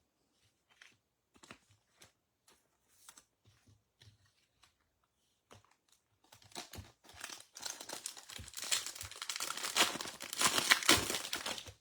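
Baseball trading card pack wrapper being torn open and crinkled, loudest in the last five seconds, after a few faint ticks of cards being handled.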